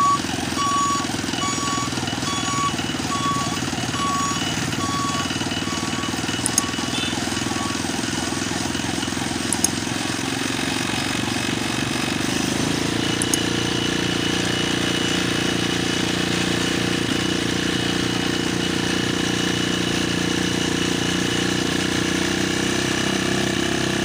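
Steady engine and road noise from a motorcycle riding slowly along a road, with a short electronic beep repeating about every 0.7 s for the first eight seconds. From about twelve seconds in, a steadier, deeper engine hum takes over, and a few sharp clicks come in between.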